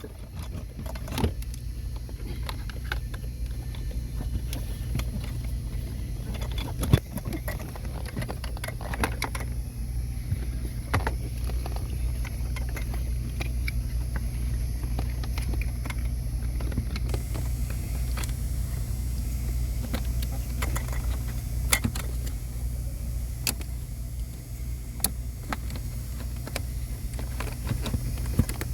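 Scattered small clicks, taps and rattles of parts and tools being handled, over a steady low hum.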